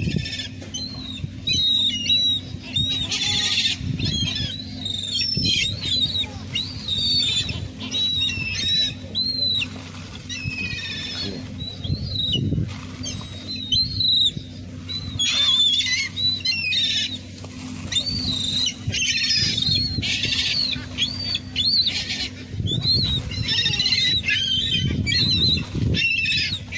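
Many seagulls calling and squawking over one another in a constant chorus of overlapping cries. A steady low hum runs underneath.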